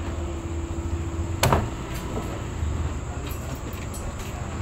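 Steady low roar of gas wok burners at a street fried-rice stall, with a single sharp knock about a second and a half in.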